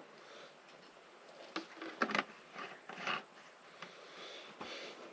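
A few faint clicks, knocks and short rustles of handling, with a quiet hiss underneath.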